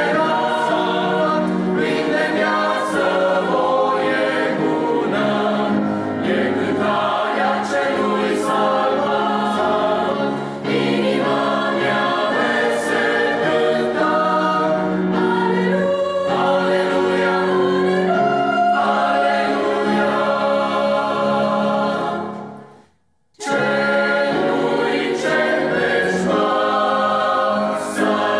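Mixed choir of men's and women's voices singing a hymn in Romanian. About three quarters of the way through, the voices stop together for about a second, then come back in.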